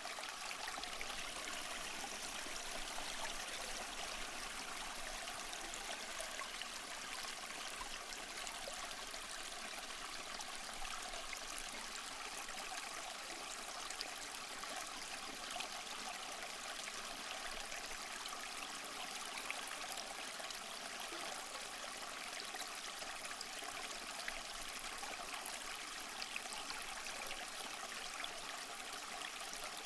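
Small waterfall splashing and trickling over mossy rocks: a steady, even rush of falling water.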